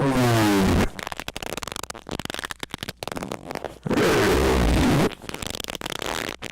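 Loud, distorted squeaking: a squeak that falls in pitch in the first second, then a second, longer squeak about four seconds in, with crackling noise between them.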